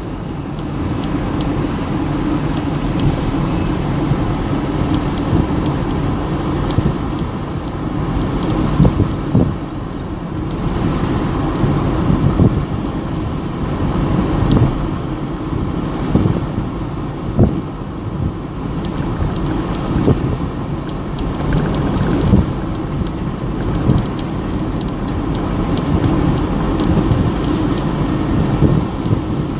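Road vehicle heard from on board while driving: a steady rumble of engine and tyres, with scattered short knocks from bumps.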